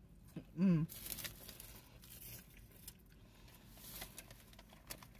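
Foil-lined paper wrapper of a fast-food chili dog crinkling and tearing in short rustles as it is pulled open around its cardboard tray. A brief hummed voice sound about half a second in is the loudest moment.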